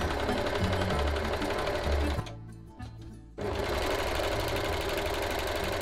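Janome 2000D Airthread overlocker (serger) stitching the edge of a single layer of medium-weight calico, running very quiet and very smooth. It runs, stops about two seconds in, and starts again about a second later.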